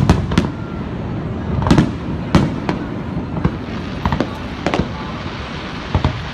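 Fireworks display: an irregular run of sharp bangs and pops, some a fraction of a second apart, others a second or more apart, over a steady background rumble.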